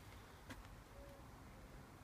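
Near silence: faint room tone with a low hum, and a faint click about half a second in.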